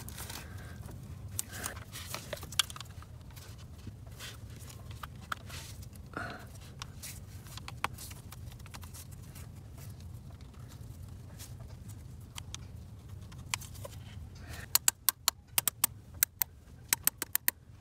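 Hand tools and metal fuel-line fittings clicking and knocking as the lines are fitted to diesel injectors, over a low steady hum. Near the end comes a quick run of sharp clicks, a ratchet wrench being worked.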